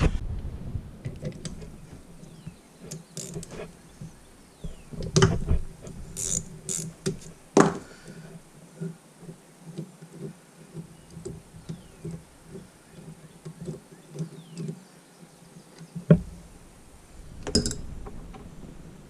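Hand ratchet wrench clicking in quick, repeated strokes as a 10 mm bolt is turned out of an ATV engine case, with several sharp metal knocks of tools and parts in between.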